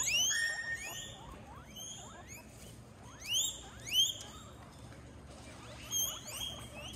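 Guinea pig wheeking: high squeals that rise in pitch, in pairs, one pair at the start, one at about three and a half seconds and one near six seconds.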